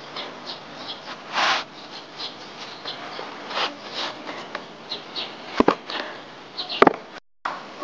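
Hands rolling a scallion-filled sheet of dough into a log on a floured wooden board, a soft rubbing, then a cleaver cutting the dough log into pieces, its blade knocking sharply on the board twice near the end.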